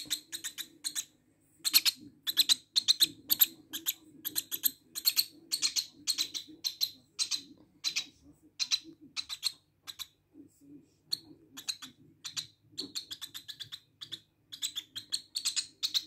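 Lovebird chick chirping: runs of short, high-pitched chirps in quick succession, pausing briefly about two-thirds of the way through.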